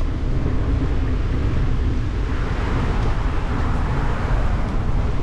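Wind rumbling on the microphone of a camera carried on a moving bicycle, as a steady low noise. A car passes on the adjacent road, its tyre and road noise swelling and fading between about two and four and a half seconds in.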